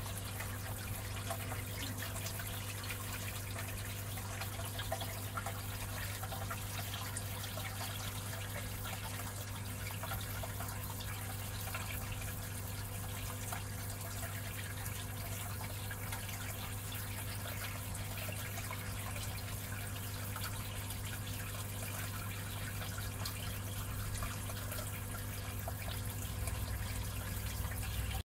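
Water trickling and dripping steadily into a fish-rearing tub, over a steady low hum. It cuts off abruptly at the very end.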